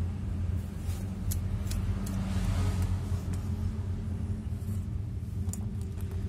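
A steady low hum, with a few light clicks and scrapes from a small cardboard box being picked up and its sleeve slid off.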